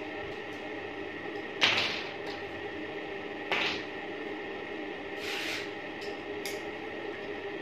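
Small tools and gun parts handled on a wooden table: a sharp knock about a second and a half in, another about two seconds later, a short scrape, then a click. A steady hum runs underneath.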